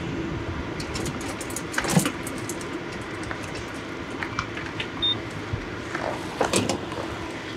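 Car engine running with a steady low hum, with a few light knocks and clicks about two seconds in and again near the end.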